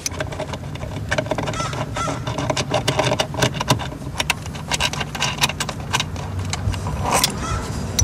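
Socket ratchet and extension clicking and clinking on metal while working at the 10 mm bolt of a car's shifter assembly, with many quick, irregular clicks throughout.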